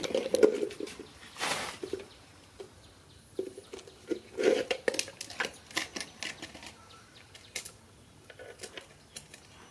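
Red plastic water dipper knocking and scraping on a concrete floor as it is set down and baby monkeys climb on and tip it, with scattered sharp clicks and a louder scrape about a second and a half in.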